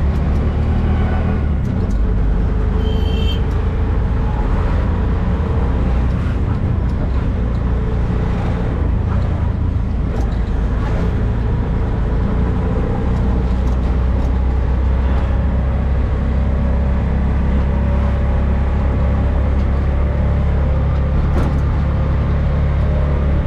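Auto-rickshaw engine running steadily with a deep hum as it drives through traffic, heard from on board.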